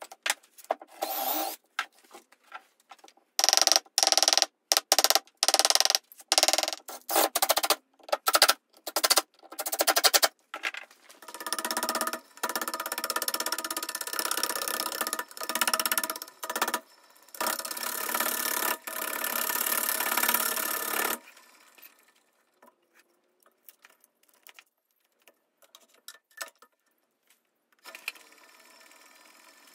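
Woodworking power tools heard in short, abruptly cut snippets, then a steady motor-driven tool running for about ten seconds with a steady tone, stopping suddenly and leaving near silence for several seconds.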